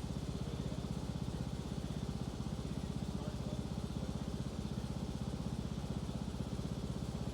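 Riding lawn mower engine running at a steady speed, a rapid even pulsing.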